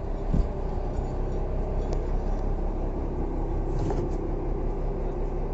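Fishing boat's engine running steadily, a low drone, with a single thump about half a second in.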